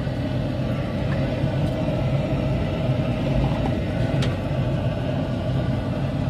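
Steady low rumble of traffic and street noise, with a faint click about four seconds in.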